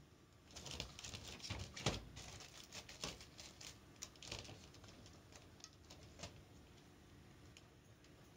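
Handling noises from a yarn-wrapped wooden board and a hot glue gun: a run of light taps, clicks and rustles, with one sharper knock about two seconds in, thinning to a few faint ticks in the second half.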